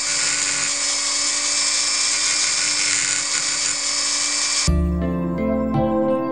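Handheld rotary tool with a grinding stone running at high speed with a steady whine, grinding down a welded-up steel cam lobe. About four and a half seconds in it cuts off abruptly and gives way to guitar music.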